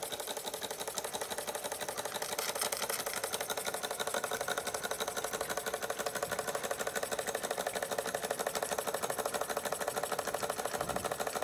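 Bing vertical toy steam engine running steadily, driving its line shaft and belt-driven tin workshop models: a rapid, even mechanical ticking beat that holds constant.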